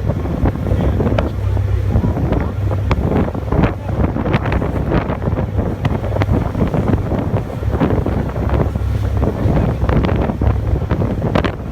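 Wind buffeting the microphone on a moving ferry crossing a river, in uneven gusts over a steady low rumble.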